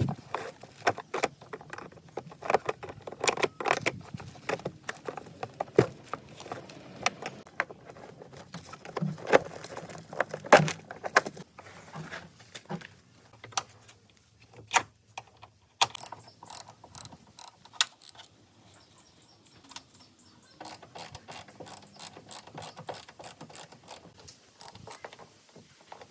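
Metal tools and parts being worked by hand: an irregular run of clicks, clinks and knocks, with a quieter stretch about halfway through and bunches of quick light clicks near the end.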